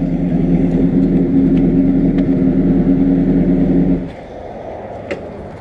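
Motorcycle engine running at a steady pitch, then dropping away sharply about four seconds in, leaving a quieter low rumble.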